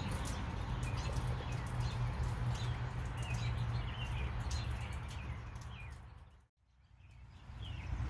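Small birds chirping repeatedly, short falling chirps, over a steady low outdoor rumble. The sound fades out to silence about six and a half seconds in, then fades back in.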